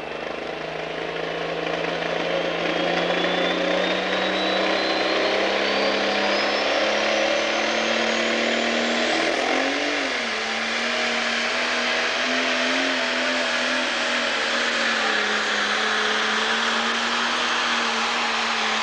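Super stock pulling tractor's turbocharged diesel engine running hard at high revs, getting louder over the first few seconds, with a high turbo whine climbing steadily in pitch for several seconds, then holding a steady full-throttle note as the tractor pulls the sled.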